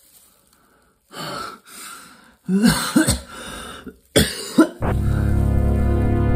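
A man's coughs, throat-clearing and strained gasping noises in short bursts, some rising in pitch. About five seconds in, music with sustained low notes starts abruptly.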